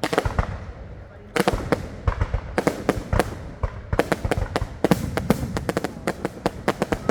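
Fireworks going off in a dense volley of sharp bangs, a few at first, then many a second in quick, irregular succession from about a second and a half in.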